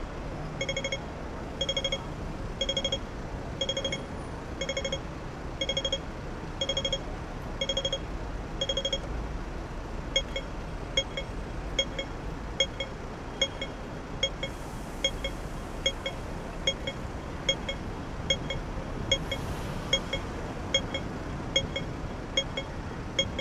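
Pedestrian crossing audible signal beeping slowly, about once a second. About ten seconds in it switches to rapid ticking, about two and a half a second, the cue that the crossing has changed to walk. Steady street traffic noise runs underneath.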